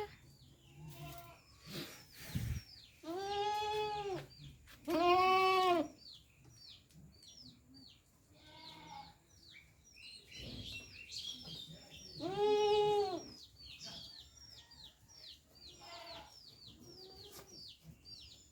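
A goat bleating: three loud, drawn-out bleats of about a second each, two in quick succession and a third some seconds later, with a few fainter calls between. Rapid high bird chirps run on behind.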